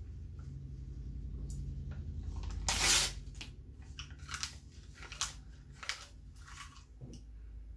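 A person biting into and chewing a sheet of printed paper: a loud paper crackle about three seconds in, then several short crunches as it is chewed.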